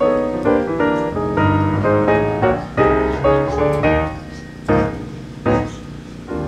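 Background piano music, with notes and chords changing several times a second and a couple of sharper struck chords near the end.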